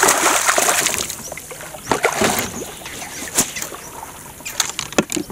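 Water splashing and sloshing in noisy bursts, loudest in the first second and again about two seconds in, with a few sharp knocks near the end.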